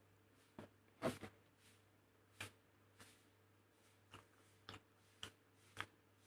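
Light clicks and knocks of kitchen utensils, about eight of them spaced irregularly, with a louder double knock about a second in, over a faint steady hum.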